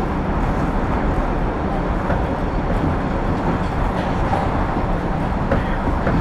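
New York City subway train (5 express) running at speed through the tunnel, heard from inside the car: a steady rumble of wheels on the rails.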